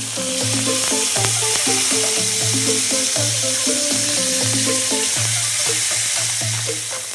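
Cutlet sizzling as it fries in hot fat in a stainless steel pan, a dense steady hiss, with background music playing under it.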